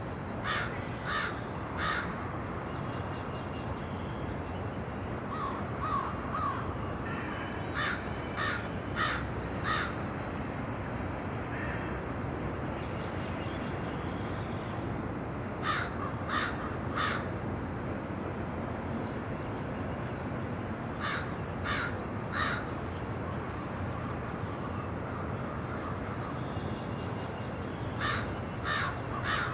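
A crow cawing in series of three or four calls, five times over, over the steady rumble of a freight train's double-stack container cars rolling past.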